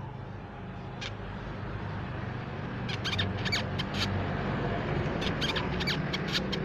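Crimson sunbird giving short, sharp, high-pitched chirps: a single one about a second in, then a quick run of many, several a second, from about three seconds in. A steady low hum lies underneath.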